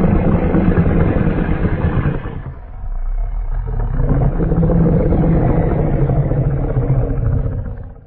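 A custom Godzilla monster growl sound effect: a low, rasping, pitched growl in two long stretches with a short dip about three seconds in, cutting off sharply at the end.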